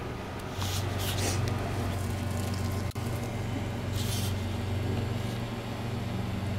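Steady low hum, louder from about half a second in, with a few brief soft rustles.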